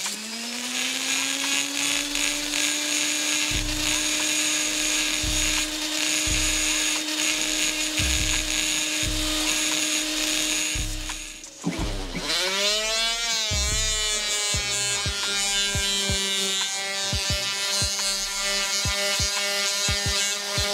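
Die grinder porting the aluminium cylinder head of a Honda CB500 with abrasive cartridge rolls: it spins up to a steady high whine, slows and winds back up about eleven seconds in, then runs on at a lower pitch as it works the port.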